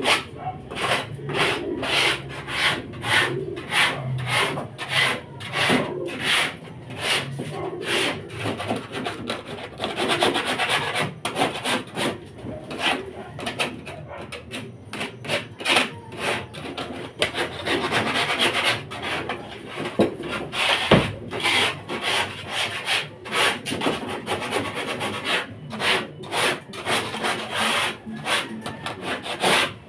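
Rhythmic scraping strokes, about two a second, with faster stretches now and then: a tool scraping the floor of a pigeon loft as it is cleaned.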